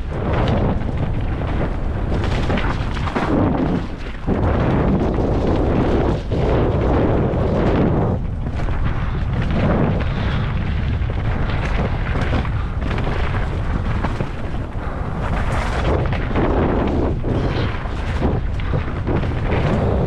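Mountain bike riding down a rough technical trail: tyres and bike rattling over the ground with wind buffeting the microphone, a loud steady rumble broken by frequent knocks.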